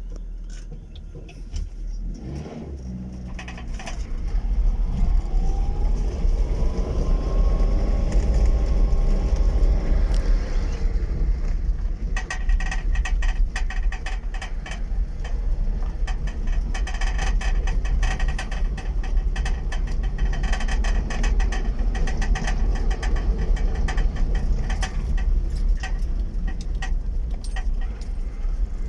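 Fiat Panda driving, its engine running under a low rumble, the engine note rising and falling about six to eleven seconds in. From about twelve seconds in, a dense, rapid clatter from the car.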